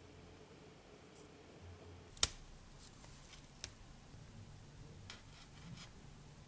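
A small handheld butane torch lighter burns with a faint steady hum, then clicks off sharply about two seconds in. After that come a lighter click and a few soft metallic ticks from tweezers and small metal tubes.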